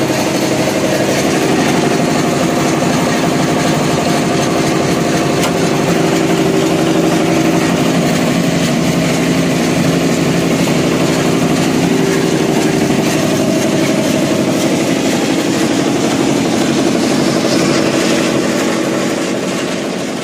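Roasted peanut peeling and splitting machine running steadily. Its motor hums under a dense rattle of split, peeled kernels being thrown out onto the steel tray.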